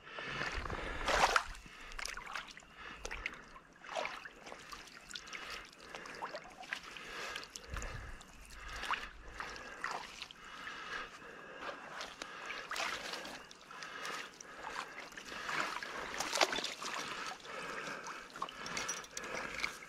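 A gloved hand splashing and sloshing in shallow pond-edge water and mud, in irregular strokes, the loudest about a second in.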